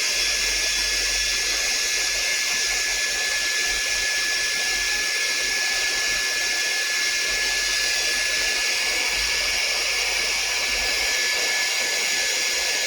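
Hot-air gun blowing steadily, with a constant high fan whine over the rush of air, heating a phone's board area before the earpiece and vibration motor are removed.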